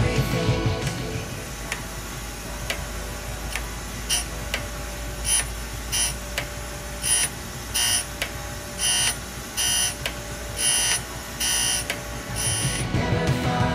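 Surface grinder grinding a Damascus steel blade: a steady low motor hum, with a dozen or so short, high-pitched squeals about a second apart as the wheel bites on each pass, getting longer toward the end.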